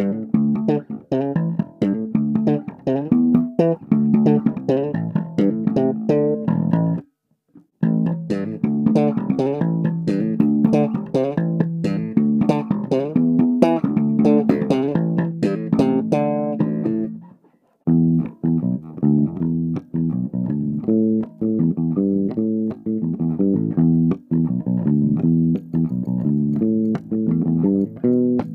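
A freshly cleaned guitar played in a fast run of picked notes. The playing stops briefly twice, about a third and about two thirds of the way through.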